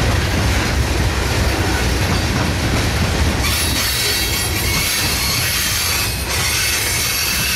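Freight train of coal hopper cars rolling past, a steady low rumble with wheels clicking over rail joints. About halfway through, as the last car goes by, the rumble weakens and a steady high hiss takes over.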